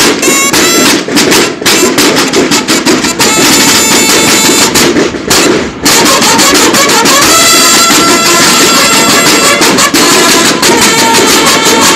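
Mexican banda de guerra drum and bugle corps: field snare drums beat fast rolls and accented strokes. After a short break about halfway, the bugles sound long held notes over the drums.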